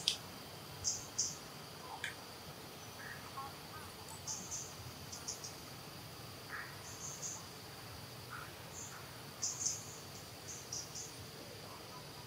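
Insects: a steady high-pitched drone, with short higher chirps in pairs and clusters every second or two, and a few faint brief lower calls scattered among them.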